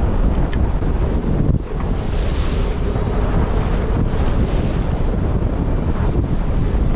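Gale-force wind of about 36 to 38 knots blasting across the microphone, with choppy waves washing around a sailboat's bow; a brief rushing hiss about two seconds in.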